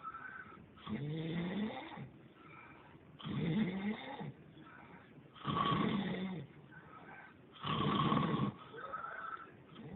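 A man snoring: four loud snores about two seconds apart, with softer breathing between them.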